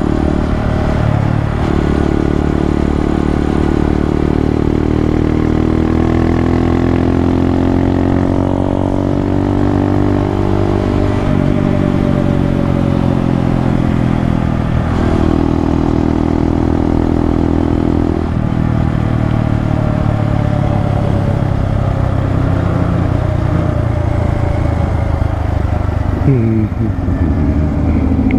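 Honda Grom's 125cc single-cylinder engine running under way, picked up by a helmet-mounted mic; the engine note rises and falls with the throttle, with several sudden drops and jumps in pitch as gears change.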